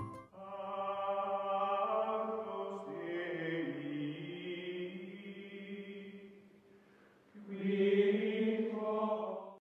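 Outro music of chanted voices holding long sustained notes that shift pitch every second or two. It fades away about two-thirds of the way through, swells back a second later and then cuts off abruptly.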